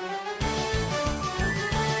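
Upbeat background music with a steady bass beat and a bouncy melody, coming in just after a brief silence.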